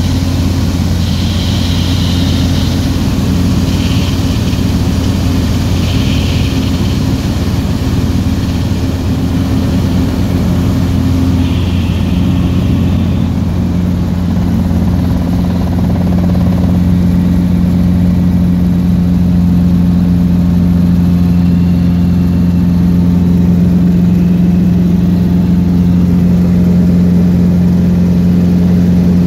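Robinson R22 helicopter's piston engine and rotor running, heard from inside the cockpit as a steady low drone. About halfway through, the engine note firms up and grows a little louder as the helicopter climbs away from the runway.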